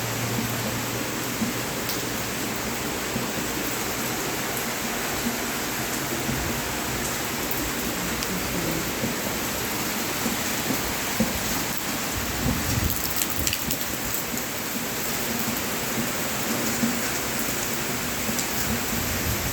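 Heavy rain pouring down in a steady, even hiss, with a few brief low rumbles about two-thirds of the way through.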